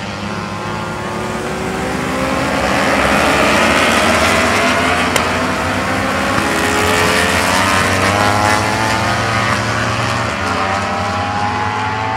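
Engines of a pack of racing motorcycles at race speed through a corner. Several engine notes overlap, rising in pitch as the riders accelerate out, and they are loudest a few seconds in.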